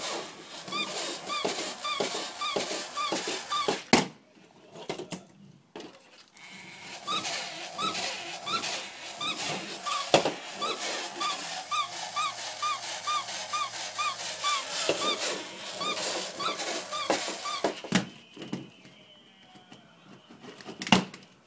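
Battery-powered plush toy dog letting out a rapid string of short squeaky yips, about two to three a second, over the clicking of its mechanism. It pauses for about two seconds near the start, then resumes and cuts out near the end.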